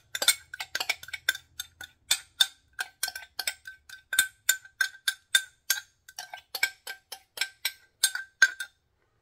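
Metal spoon clinking against a glass measuring cup as thick cream of chicken soup is scraped out of it: quick taps, about four a second, each with a short ringing note. The clinking stops shortly before the end.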